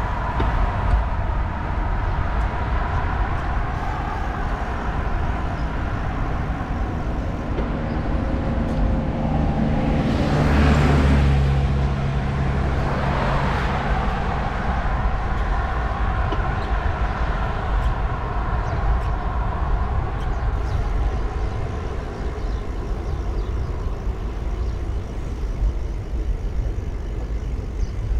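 Road traffic with a steady low rumble, and a motor vehicle passing close about ten seconds in, its engine louder for a few seconds before fading back into the traffic.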